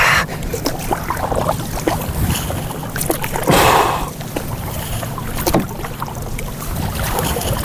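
Kayak paddle strokes dipping and splashing in the water, the loudest splash about three and a half seconds in, over a steady low rumble.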